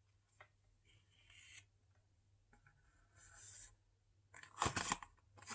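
Cardboard box being opened and handled: faint scraping and rubbing of cardboard, then a few sharp knocks and clicks near the end.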